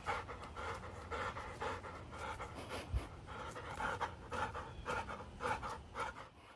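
A dog panting in quick, even breaths, about three or four a second, with a single soft knock about halfway through.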